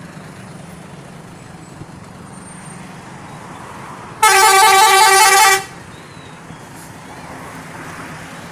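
Bus telolet horn, a multi-tone musical horn, sounding one quick warbling run of notes for about a second and a half partway through. It answers the children's call of 'Om, telolet'.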